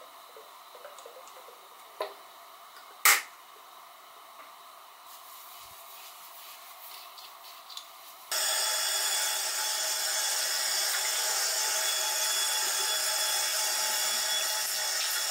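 Bathroom sink faucet turned on about eight seconds in, water running steadily from the spout into the basin and drain. Before that, light handling sounds and a sharp click about three seconds in.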